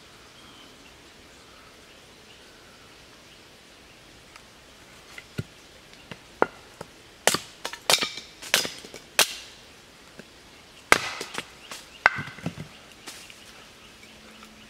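Hatchet striking and splitting a cedar billet on a stump chopping block: a run of sharp wooden knocks and cracks that begins about five seconds in and comes thickest in the middle.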